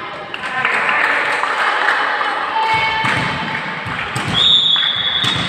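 Indoor volleyball play in a sports hall: short high squeaks of shoes on the court floor, a few ball hits and players' voices, all echoing in the hall. A loud high tone lasting under a second comes about four seconds in.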